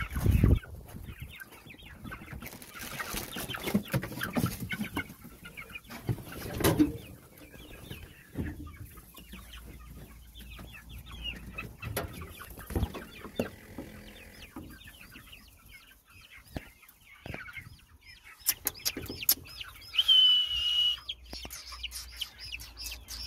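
A brood of young chicks peeping continuously with many short, high chirps, one held for about a second near the end. There are a few knocks from handling near the brooder.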